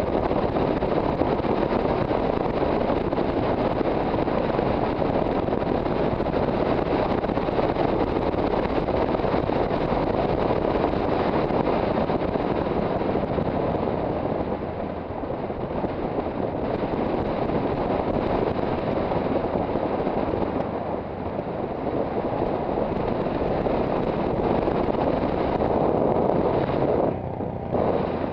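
Wind rushing steadily over the on-board microphone of a Yamaha XT660Z Ténéré being ridden, with the bike's single-cylinder engine running underneath. The noise eases briefly a few times.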